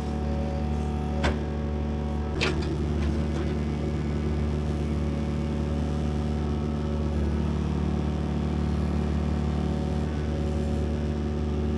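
Excavator's diesel engine running steadily under work, with two sharp knocks, one a little over a second in and another about a second later.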